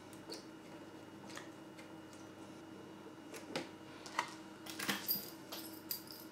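Faint small clicks and clinks of a plastic-and-metal MCB lock-off device being worked onto a circuit breaker's switch, a handful of sharp ticks coming mostly in the second half.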